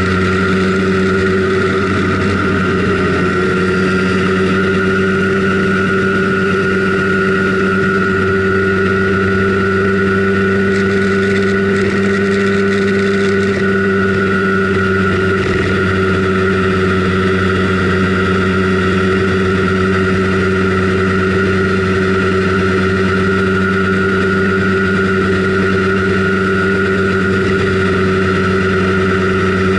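Simson Schwalbe KR51/2 scooter's 50 cc single-cylinder two-stroke engine running at a steady pitch while cruising, heard close up from a camera mounted on the scooter.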